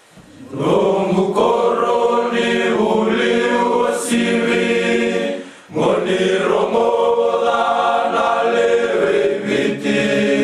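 A choir of voices singing or chanting together, in two long held phrases with a short break about five and a half seconds in.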